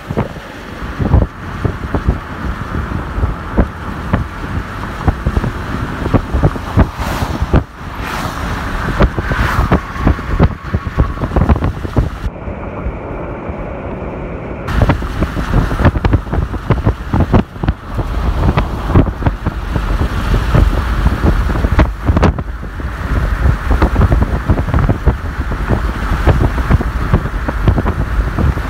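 Strong wind buffeting the microphone in irregular gusts, a heavy low rumble with frequent sudden surges.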